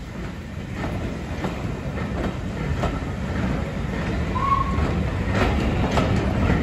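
British Railways Mark 1 passenger coaches of a steam-hauled train rolling slowly past, their wheels clicking irregularly over rail joints over a steady low rumble that grows louder toward the end. A short high tone sounds about four and a half seconds in.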